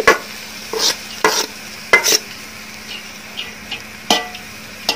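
Cooked rice being tipped into a steel pot and spread with a metal slotted spoon: several short scrapes and knocks of the spoon against the pot.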